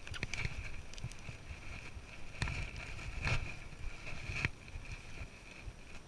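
Wind rumbling on the microphone, with a steady high-pitched whine and a few short knocks or scrapes in the middle.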